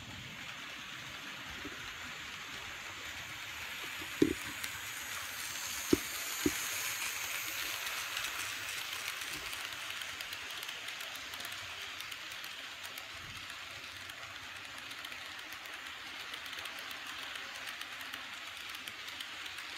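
Model train cars rolling along the layout track with a steady whirring rush that swells as the cars pass close and then eases, broken by three sharp clicks about four and six seconds in.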